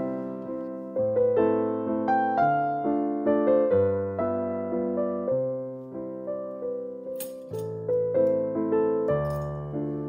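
Background piano music: a gentle melody of struck, fading notes over slow-changing bass notes.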